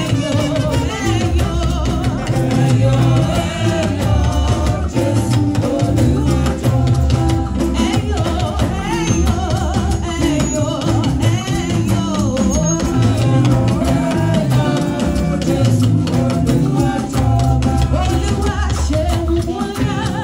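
Church praise-and-worship music: voices singing over drums and percussion with a steady, driving beat.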